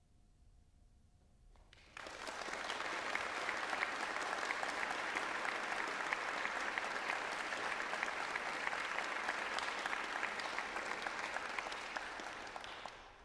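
Audience applauding. The applause breaks out suddenly about two seconds in, holds steady, and dies away near the end.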